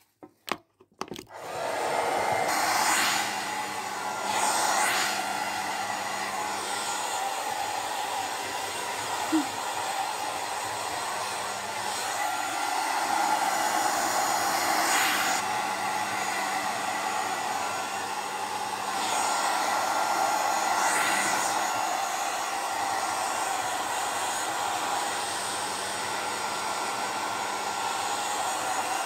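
Hand-held hair dryer blowing steadily, switched on about two seconds in after a few clicks. Its rush of air swells briefly several times.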